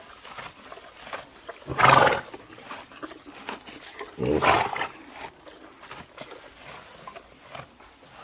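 Two loud animal calls, about two and a half seconds apart, each lasting about half a second.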